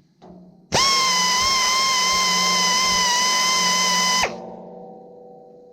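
Electric grinder grinding a tooth of a sawmill band blade during sharpening. A steady high whine starts about a second in, lasts about three and a half seconds and cuts off sharply, then a hum fades away.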